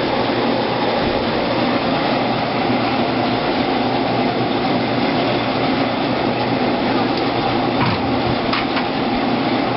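Grape crusher-destemmer running steadily as the first batch of Pinot Noir grapes goes through, with a few light knocks near the end.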